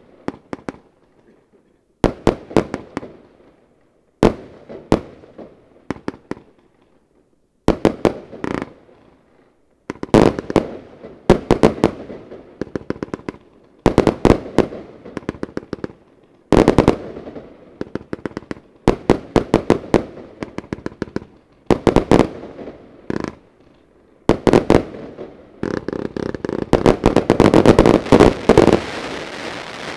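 Lesli Tsunami of Gold 144-shot, 25 mm compound firework cake firing volley after volley: quick clusters of sharp shots with short pauses between them. About 25 seconds in it builds to a dense finale barrage of rapid shots, which stops just before the end.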